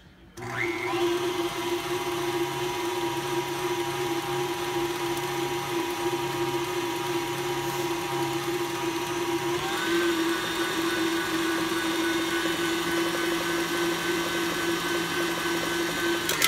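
KitchenAid stand mixer starting up and running steadily as it beats vanilla pudding and Cool Whip in its steel bowl; its pitch steps up about ten seconds in.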